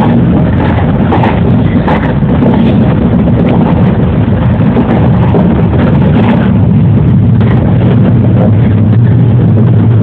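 JR 113 series electric train running, heard from inside the front car: a steady rumble of wheels and traction motors, with irregular clicks in the first half and a low hum that grows stronger in the second half.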